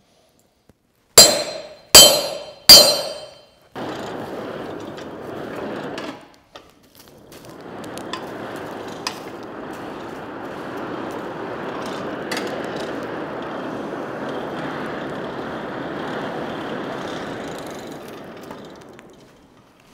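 Three ringing hammer blows on a chisel splitting a red-hot steel bar on an anvil. These are followed by the steady rushing noise of a coal forge fire burning, with a few small crackles and a short gap about six seconds in.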